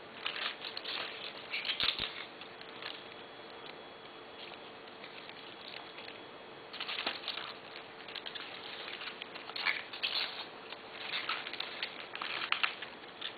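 Flower stems, leaves and twigs rustling and crackling as they are handled and set into a bouquet: scattered bursts of scratchy rustling, in two spells with a quieter lull in the middle.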